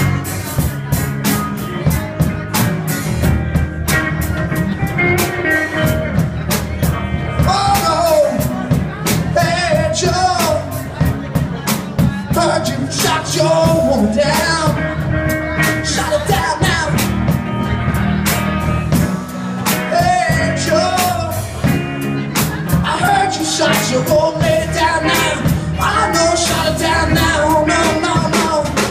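Live rock band of electric guitar, electric bass and drum kit playing a blues-rock song, with a man singing from about eight seconds in.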